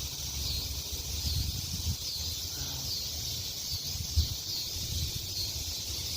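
Chorus of cicadas: a steady high buzz that swells in rhythmic pulses about once a second. Under it an uneven low rumble, with a sharp thump about four seconds in.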